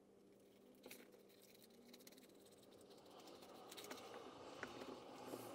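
Faint soft dabbing and brushing of a glue-loaded paintbrush on wet newspaper papier-mâché, with small paper rustles and clicks that grow a little louder in the second half, over a faint steady low hum.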